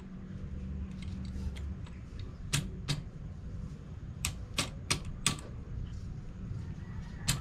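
Sharp metallic clicks and taps, about seven in an irregular series, as hand tools work on a motorcycle's aluminium side stand and its mounting bracket.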